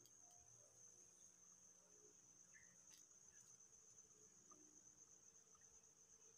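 Faint, steady high-pitched trill of insects, with one faint click about halfway through.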